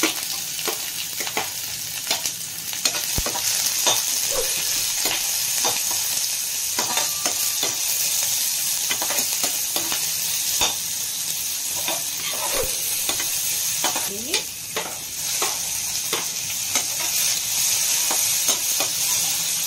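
Sliced onions sizzling and frying in hot mustard oil in a kadhai, with a steady hiss and a metal spatula scraping and clicking against the pan as they are stirred.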